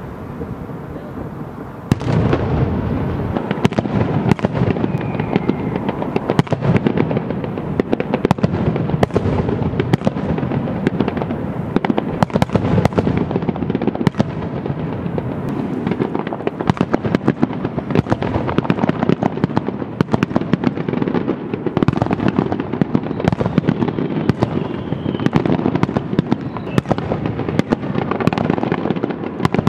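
Aerial fireworks display: a dense, unbroken run of sharp bangs from bursting shells over a steady rumble, starting about two seconds in.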